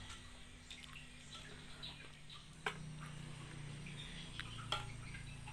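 Banana being sliced with a knife over a pot of thin batter, the pieces dropping in: a few faint ticks and small plops over quiet room tone with a low hum.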